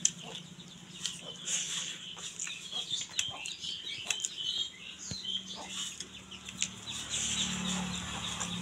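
Chickens clucking and small birds chirping, with scattered short clicks.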